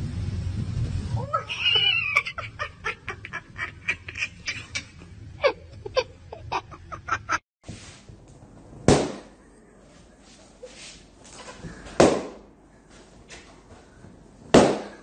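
Rubber party balloons bursting with sharp bangs, three times about three seconds apart, as a rabbit bites and shoves them.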